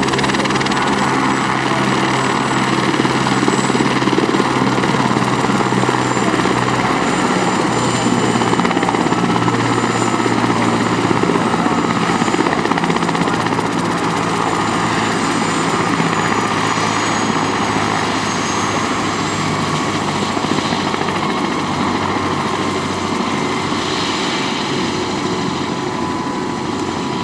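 Light single-engine turbine helicopter, an AS350 AStar type, settling onto the ground and running with its rotors turning, its turbine whining steadily over the beat of the main rotor. The low rotor beat weakens about ten seconds in as it sits on its skids.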